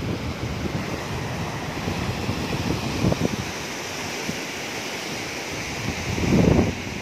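Fast-flowing muddy floodwater rushing past in a steady noisy wash, with wind buffeting the microphone in gusts, the strongest about six seconds in.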